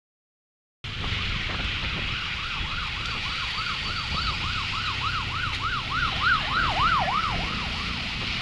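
Emergency vehicle siren on a fast yelp, sweeping up and down about three times a second. It grows louder, then fades near the end, over steady traffic and road noise. The sound cuts in abruptly just under a second in.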